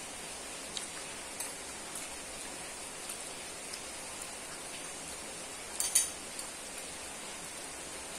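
Metal fork and spoon clicking against a ceramic plate as fried noodles are twirled and eaten, with a louder clatter about six seconds in, over a steady hiss.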